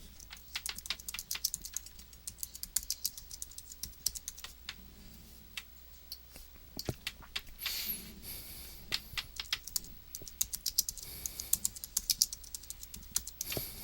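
Typing on a computer keyboard: quick, uneven runs of key clicks with a short pause about halfway through.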